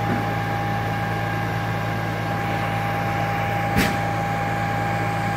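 Boom truck's diesel engine running steadily, with a steady high whine over the low hum, and a single sharp knock just before four seconds in.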